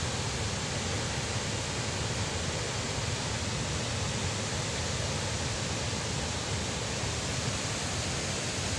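Fast, turbulent water rushing out below a dam's spillway gates, a steady even rush with no breaks.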